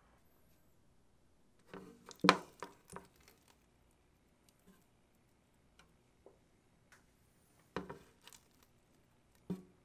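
Kitchen handling sounds: short clusters of knocks and light clatter, the loudest about two seconds in, with two more bursts near the end.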